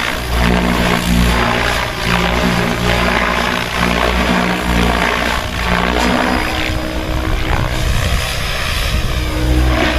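Henseleit rigid-rotor radio-controlled model helicopter flying high-speed passes, its motor and rotor whine running continuously and rising and falling in pitch as it goes by.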